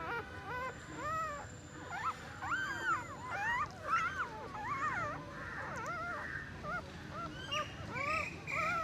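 Newborn puppies squeaking and whimpering: many short high cries, each rising and falling in pitch, overlapping one another.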